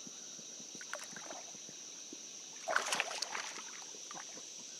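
A largemouth bass dropped back over the side of a kayak: a splash with sloshing about three seconds in, a few small drips or knocks before it. A steady high insect drone runs underneath.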